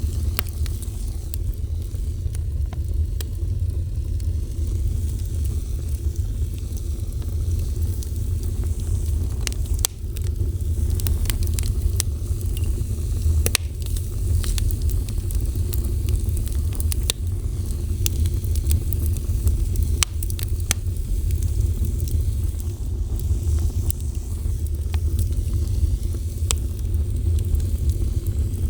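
Fire burning: a steady low rumble with scattered sharp crackles and pops, more frequent from about ten seconds in.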